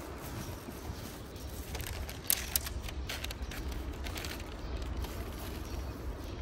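Paper wrapping and a clear plastic food tray crinkling and clicking as a pack of inari sushi is unwrapped, with a few sharp crackles around the middle. Wind rumbles on the microphone throughout.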